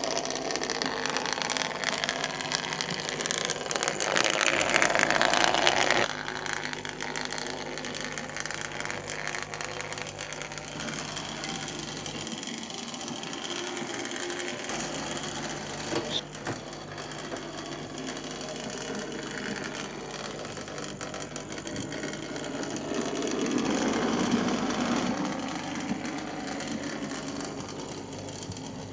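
OO gauge model locomotives running: a steady electric-motor whirr with fast clicking of wheels over the rail joints. It is louder for a couple of seconds, drops off suddenly about six seconds in, and swells again near the end as a train passes close.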